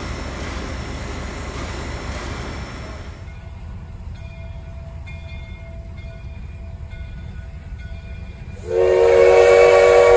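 A steady rumble around the diesel locomotive, then, after a cut, a steam locomotive's whistle sounding one long, loud blast of several tones together, starting near the end.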